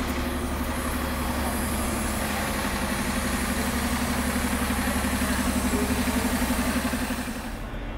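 Diesel engine of a double-decker sightseeing bus idling, a steady low rumble with a fast throb, dropping away abruptly near the end.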